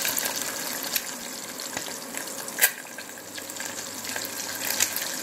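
An egg sizzling steadily in hot ghee in a pot on an induction cooker, while a spatula works at it. The spatula makes a few clicks and one sharp knock about halfway through.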